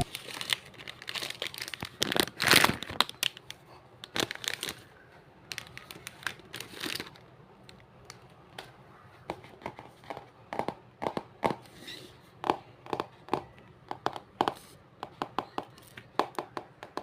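Irregular crinkling and crackling of something being handled close to the microphone. The short crackles come thickest in the first few seconds and again in the last few.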